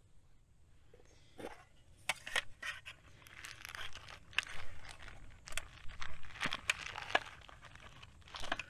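A small metal fire-kit tin being opened and rummaged through, beginning about a second and a half in: sharp clicks and knocks of the tin and its contents, with the crinkling of a plastic bag of char cloth being pulled out.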